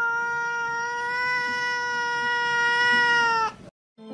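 A domestic cat holding one long, steady yowl that dips slightly in pitch and stops about three and a half seconds in.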